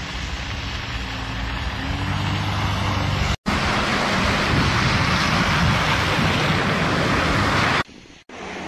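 Road traffic noise on snowy streets: vehicle engines running and a steady rush of tyre and wind noise. The sound cuts abruptly about three and a half seconds in and again near the end, where separate clips are joined.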